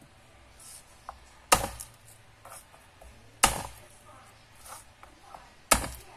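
Chef's knife chopping through garlic cloves onto a plastic cutting board: three sharp knocks about two seconds apart, with light handling noises between them.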